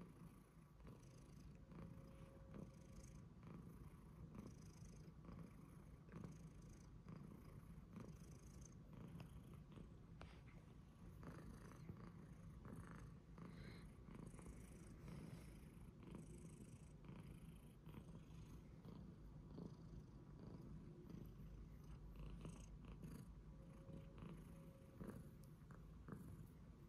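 Long-haired tabby cat purring steadily and quietly.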